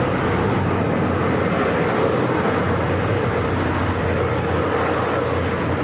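Antonov An-12B's four Ivchenko AI-20 turboprop engines running as the aircraft taxis, a steady drone.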